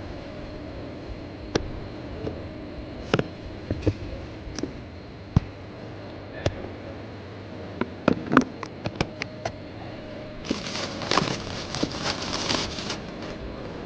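Scattered clicks and knocks of car parts being handled while filters are changed, with a quick run of them about eight seconds in, then about two seconds of rustling and scraping near the end, over a faint steady hum.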